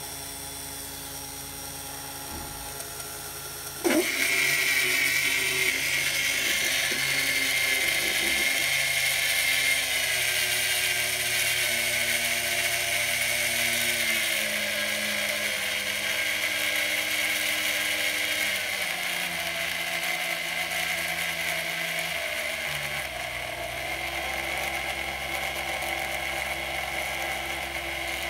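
Hanpose 775 brushed DC motor running unloaded, a steady whine. About four seconds in it turns abruptly louder and rougher as a contact tachometer's tip is pressed onto the spinning shaft. Its pitch then steps down several times as the supply voltage is lowered from 24 V toward 12 V and the motor slows.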